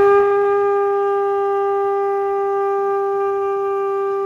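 Conch shell trumpet blown, sounding a single long, steady, horn-like note.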